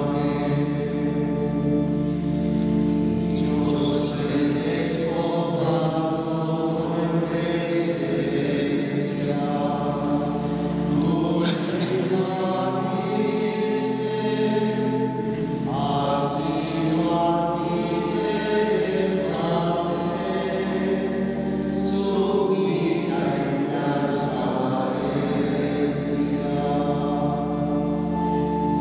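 Male choir of Cistercian monks singing a slow chant together, with long held notes.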